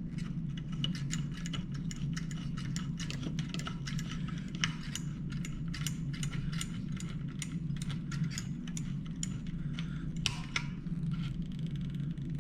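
Ratchet wrench clicking as a bolt on the gas pedal assembly is turned, with rapid, uneven clicks and a few louder metal knocks. A steady low hum runs underneath.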